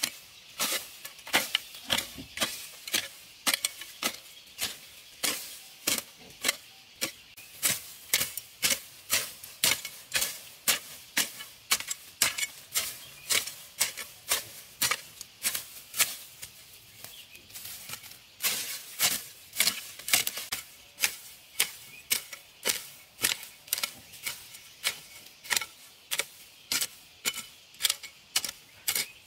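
Hand hoe with a metal blade chopping repeatedly into grassy soil, about two sharp strokes a second, with a short pause a little past halfway.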